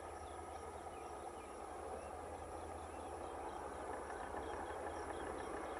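Distant passenger train hauled by an electric locomotive approaching: a low, steady rumble of wheels on rail that slowly grows louder. Small birds chirp repeatedly over it.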